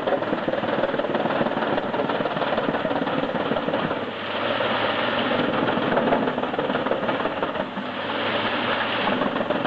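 Industrial wood chipper running under load as it shreds logs: a steady engine and grinding din that dips briefly about four seconds in and again near eight seconds.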